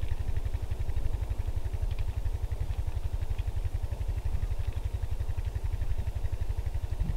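An engine idling: a low, steady rumble that pulses at a fast, even rate.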